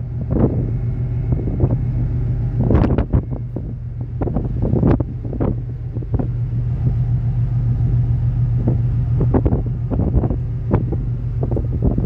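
Wind buffeting the microphone in irregular gusts over the steady low hum of a cargo ship's machinery under way.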